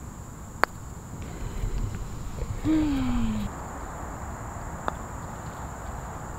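Two sharp clicks of a putter striking a golf ball, one about half a second in and a fainter one near five seconds, over a steady high drone of insects. A brief falling voice sound comes between them.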